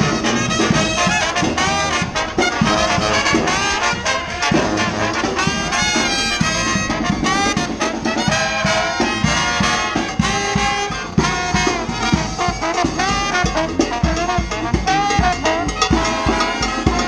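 Street brass band playing: trombones and trumpets over a steady drum beat.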